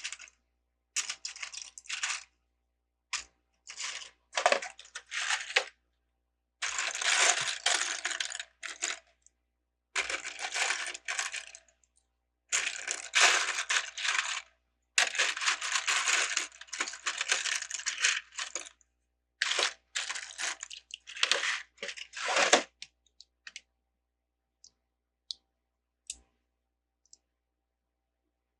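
LEGO bricks rattling and clattering in repeated bursts as a hand sifts through a pile of loose pieces, then only a few scattered clicks near the end.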